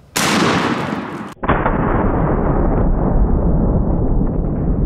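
A 10-gauge shotgun fires one shot of double-aught buckshot, the blast lasting about a second. It then cuts abruptly to a long, deeper rumble that carries on: the blast slowed down with slow-motion footage.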